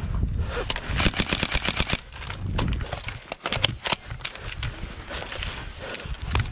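Electric airsoft guns firing. A fast full-auto burst of about a dozen shots a second comes about a second in, with scattered single shots around it.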